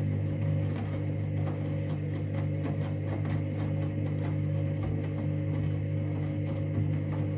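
Washing machine running with a steady electric hum, faint irregular clicks and rattles over it.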